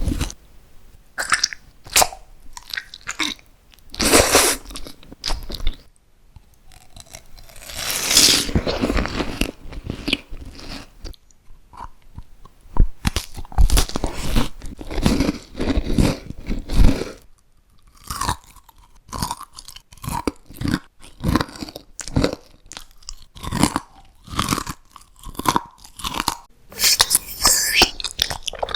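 Close-miked eating sounds: crunchy bites and chewing, with sharp snaps and stretches of dense crunching, then a run of shorter, evenly spaced chews in the second half.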